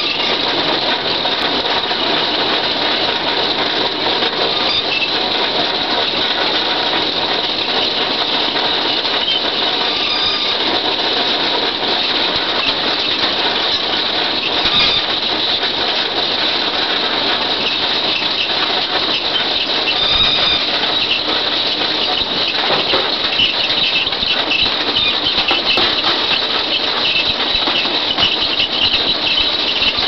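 Potato harvester running in the field: its rod-chain webs, picking table and elevator make a steady loud clatter, with a continuous high metallic squeal over it.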